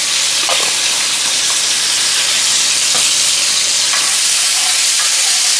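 Minced garlic sizzling in hot olive oil in a nonstick skillet, a steady hiss with the background noise of a kitchen fan, and a few light knocks as it is stirred.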